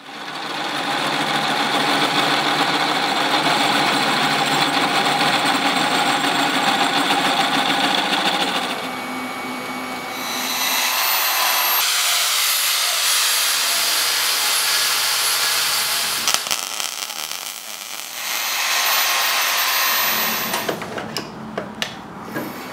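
Power tools running in turns, among them an angle grinder cutting steel tubing with a steady high-pitched grind. A few sharp metal clanks come near the end.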